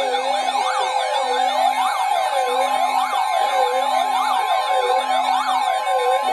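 Electronic emergency alert tone: a siren-like sweep rising and falling about once a second over a steady tone, with a low tone beeping on and off, signalling an incoming severe thunderstorm warning broadcast.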